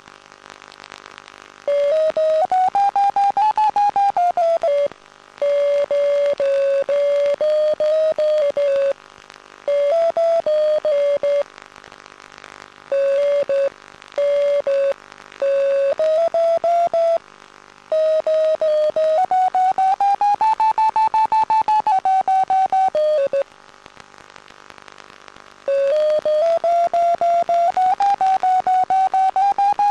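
FPV system's audio variometer beeping: a rapidly pulsed electronic tone that starts and stops in stretches, with its pitch stepping up and down as the climb rate changes. Near the end it climbs higher and keeps going, signalling that the plane is rising in a thermal.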